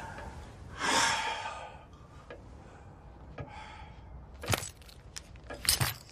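A man's harsh gasp for breath about a second in, then a few sharp clicks near the end.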